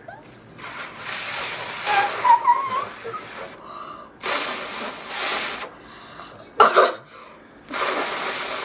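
Rubber whoopee cushion being blown up by mouth: four long, breathy puffs of air with short pauses between them. The third puff is brief and the loudest.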